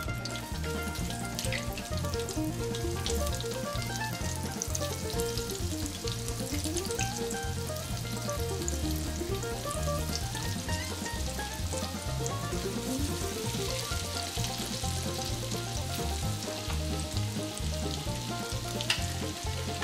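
Battered chicken wings deep-frying in hot oil in a cast-iron skillet: a steady crackling sizzle. Background music plays under it.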